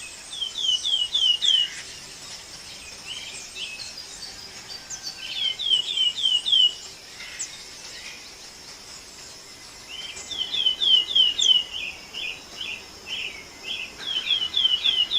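A songbird singing repeated phrases of four or five quick, down-slurred whistled notes, about four phrases with pauses between, over a steady high-pitched background hiss.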